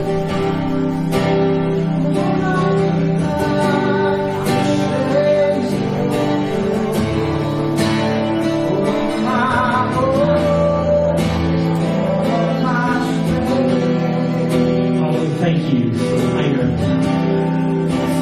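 Live worship band playing soft music: strummed acoustic guitar over long sustained chords, with a voice singing a wavering melody line in places.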